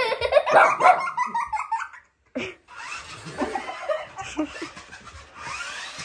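A person laughing hard in quick repeated bursts for about two seconds. After a brief gap comes a fainter, steady noise.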